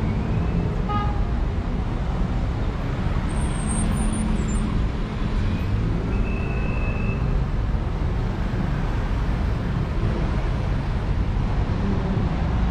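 Town street ambience: a steady low rumble of road traffic, with a short high tone about six seconds in.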